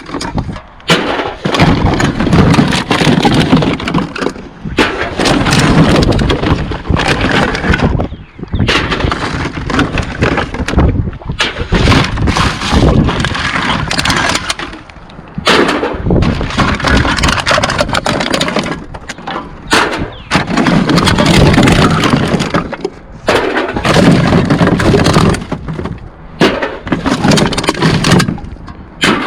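Loud, continuous clattering and rattling of cans and scrap metal, a dense run of sharp knocks and clinks.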